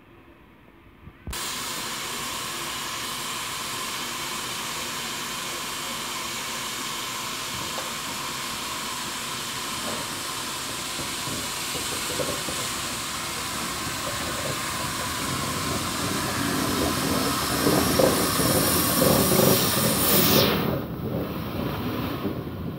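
Ex-South African Railways Garratt steam locomotive hissing steam steadily as it moves slowly past. The hiss starts suddenly about a second in and stops abruptly near the end, while the rumble of the locomotive grows louder in its last few seconds.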